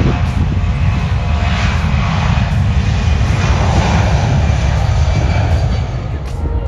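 An RCAF CC-177 Globemaster III (C-17) on its takeoff roll, its four Pratt & Whitney F117 turbofans at takeoff power: a loud, steady low rumble with a jet roar that falls in pitch as the aircraft passes, about two to five seconds in.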